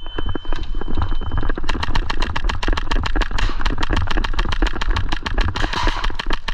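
Airsoft gun firing rapid full-auto, a fast even run of sharp clicks about eight a second that starts about a second and a half in, over low rumble and a brief thin high tone at the start.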